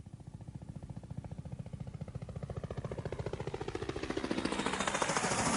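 A vehicle approaching with a rapid, even pulsing beat, growing steadily louder, with a rising hiss that peaks near the end as it draws close.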